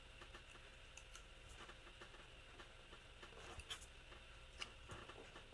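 Near silence with a few faint scattered taps and ticks of paper and sticker sheets being handled on a desk.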